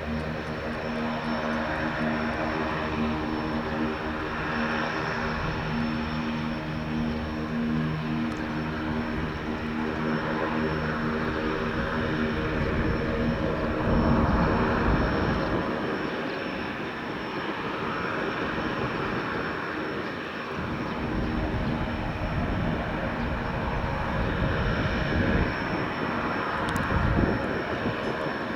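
Pilatus PC-6 Turbo-Porter's Pratt & Whitney PT6A turboprop and propeller running with a steady hum. About halfway through, the hum gives way to a rushing noise that swells and fades several times.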